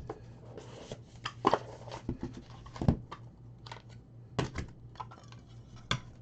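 Trading card packs and cards being handled: a few short crinkles and taps, about one every second and a half, over a low steady hum.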